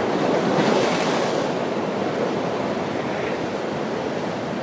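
Wind rushing over the microphone, a steady noise that swells briefly about a second in.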